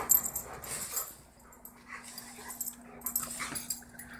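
A German shepherd and a black dog play-fighting, wrestling and mouthing each other, with scuffling and short dog vocal sounds in irregular bursts.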